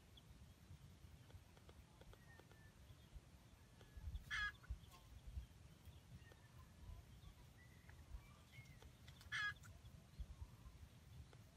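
Junglefowl giving two short, sharp calls about five seconds apart over a quiet background.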